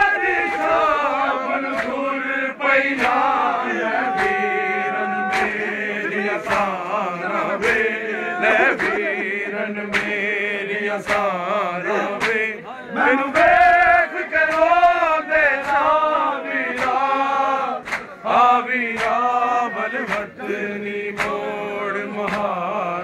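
A group of men chanting a nauha, a Shia lament, in unison. Sharp rhythmic slaps of chest-beating (matam) keep time, a little faster than once a second.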